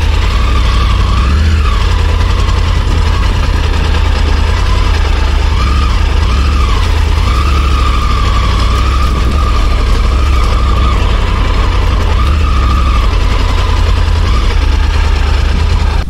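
Triumph Tiger 900's three-cylinder engine running as the motorcycle rides over a rough, muddy dirt track. Its pitch wavers up and down a little with the throttle, over a steady low rumble.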